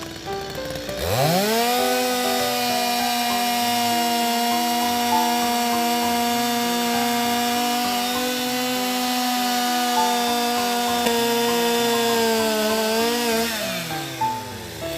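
Two-stroke chainsaw throttled up about a second in and held at a steady high pitch for about twelve seconds, then dropping back down near the end.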